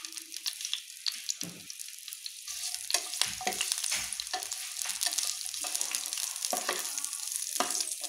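Strips of green bell pepper sizzling as they are lightly sautéed in hot oil in a frying pan. A spatula scrapes and taps against the pan as they are stirred, making repeated short clicks over the hiss.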